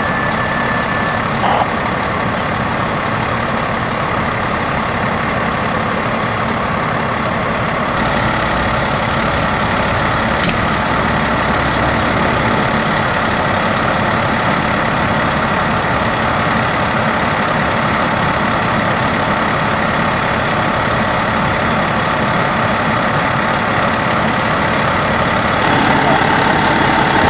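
Fire engine running close by: a loud, steady engine rumble and hiss that doesn't let up. Near the end a steady higher whine joins in.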